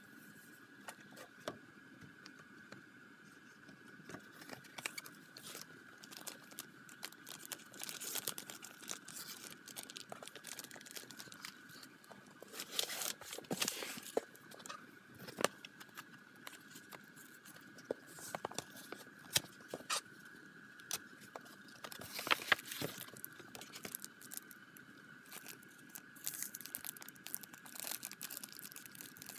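Clear plastic sleeves and packaging crinkling and rustling as they are handled, with scattered small clicks and taps. The rustling comes in louder spells about halfway through and again near the end, over a faint steady high whine.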